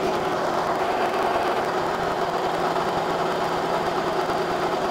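Metal lathe running, its spindle turning a steel shaft held in a four-jaw chuck, with a steady mechanical hum of motor and gearing.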